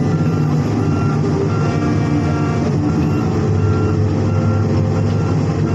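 Tracked excavator's diesel engine running steadily under load as the machine moves through mud and water, heard from inside the cab. A short beep repeats about twice a second over it.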